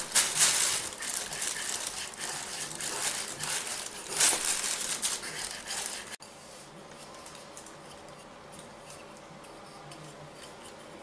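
A knife blade scraping and shaving a wooden stick in uneven rasping strokes, mixed with the crinkle of a plastic bag, as a notch is carved in the end of a bow-drill bow. About six seconds in it cuts off to quiet room tone.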